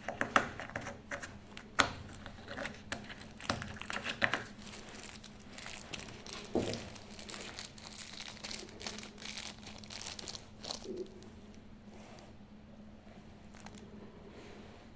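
Plastic packaging crinkling and rustling, with small sharp clicks, as a packet of decoder pins is handled and opened. The handling noise thins out to quiet fiddling about eleven seconds in.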